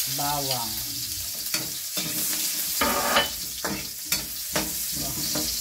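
Chopped garlic and ginger sizzling in hot oil in a steel wok, with a spatula scraping and clicking against the metal as they are stirred.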